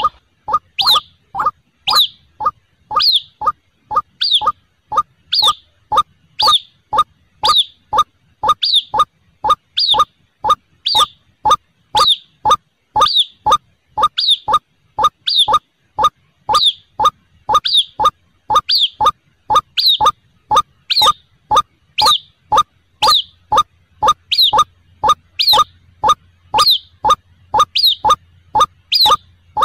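White-breasted waterhen calls repeated over and over in an even rhythm: short sharp notes about twice a second, every other one paired with a higher ringing note.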